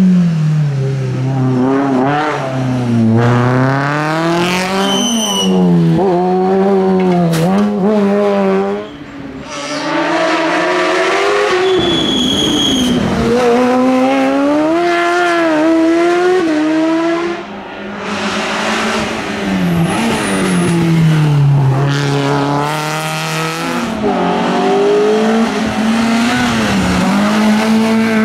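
Competition rally cars on a hill climb, engines revving hard and rising in pitch, then dropping with gear changes and lifts for corners, with brief high tyre squeals.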